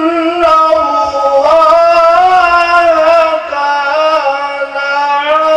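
A man chanting solo into a handheld microphone, holding long notes that slide slowly between pitches.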